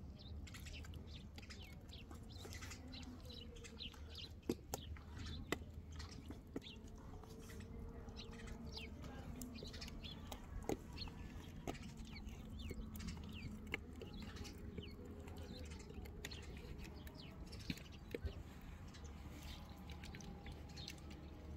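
Birds chirping in quick short notes, with an occasional cluck from chickens, over a low steady rumble and a few sharp clicks.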